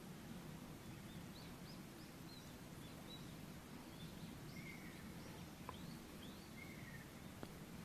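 Faint birdsong: a run of short, high-pitched chirping notes, many of them quick upward flicks, from small birds over a steady background hiss.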